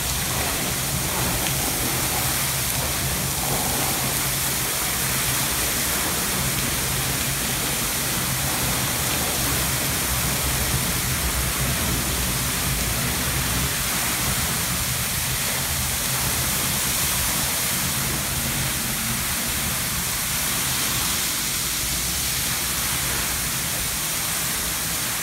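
Burst water main jetting water high into the air: a steady, unbroken rushing hiss, with the spray falling back like heavy rain onto the pavement. A faint low hum runs underneath.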